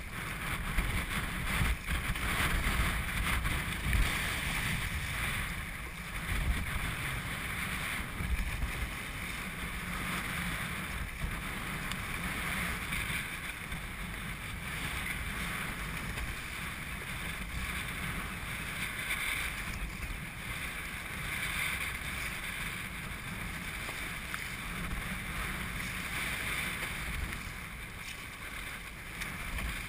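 Wind rumbling on the microphone over the splash and wash of choppy sea water around a sea kayak as it is paddled, with a few sharper splashes in the first few seconds.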